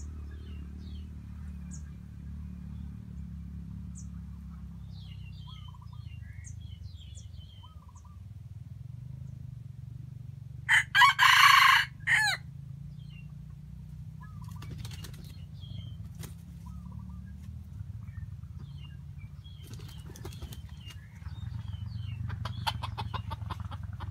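A red junglefowl rooster crows once about halfway through: a short, loud crow in a few broken parts, lasting about a second and a half. Small birds chirp here and there over a steady low rumble.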